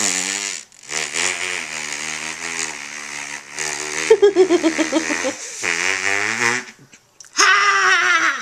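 A man blowing raspberries on a baby's belly, lips buzzing against the skin in three blows, the middle one about four and a half seconds long. A short high-pitched voice follows near the end.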